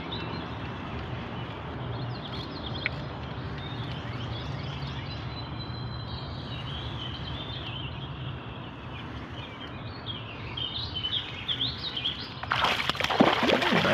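Birds chirping over a steady low background hum while a hooked channel catfish is reeled in. About twelve and a half seconds in, loud splashing starts as the fish thrashes at the water's surface beside the boat.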